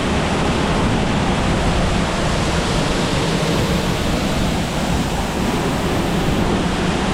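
Waterfall rushing steadily, a loud, unbroken wash of falling water, with wind buffeting the microphone in low rumbles.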